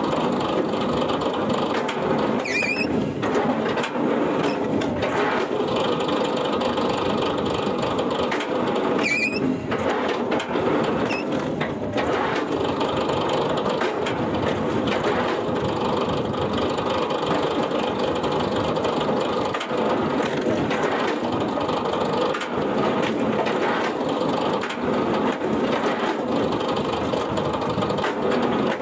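Wood-processing machinery running steadily with a dense, continuous grinding noise, with two brief squeaks, one a couple of seconds in and another about nine seconds in.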